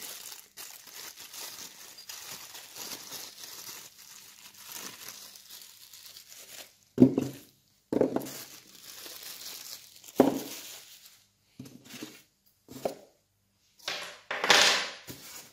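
Clear plastic bag crinkling steadily as it is unwrapped from a small plastic dust-port adapter. This gives way, about seven seconds in, to several short, louder knocks and rustles as parts are handled in a polystyrene-packed cardboard box.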